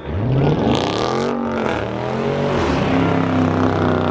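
Car engine revving, its pitch rising and falling over the first couple of seconds before settling to a steady run. A short hiss comes about a second in.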